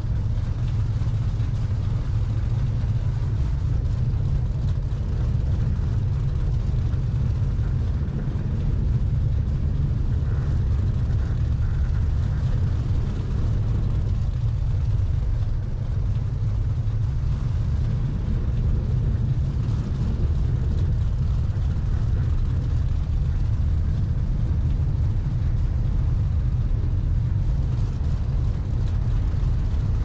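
Triple Mercury 1350 engines of a Fountain 47 powerboat running at a steady speed: a low, even rumble that neither rises nor falls.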